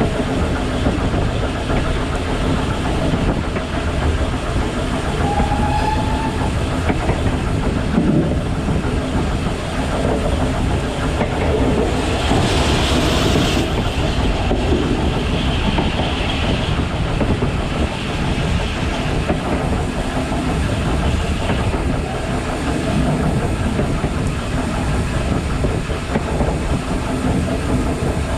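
BR Standard Class 5 4-6-0 steam locomotive 73156 running along the line, with the steady rumble and clatter of its wheels over the rails. About twelve seconds in, a burst of steam hiss lasts roughly two seconds, with a fainter one shortly after.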